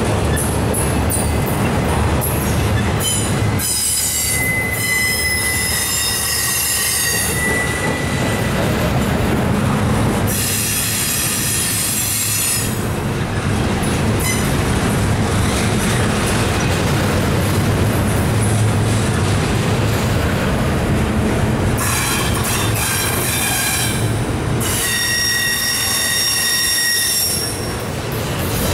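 Intermodal freight cars with trailers and double-stacked containers rolling past at close range: a steady, loud roar of steel wheels on rail, broken by several spells of high, ringing wheel squeal lasting a few seconds each.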